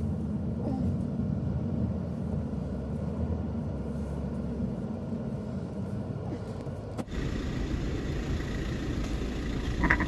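Car cabin noise from a car moving slowly: a steady low engine and tyre rumble. About seven seconds in it switches abruptly to a slightly different steady hum.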